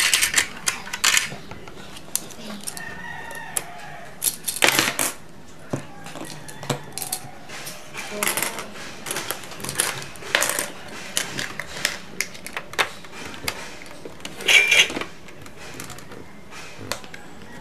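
Plastic play coins of a Minnie Mouse Bow-tique toy cash register clicking and clattering as they are handled, in irregular taps with a few louder bunches of clatter.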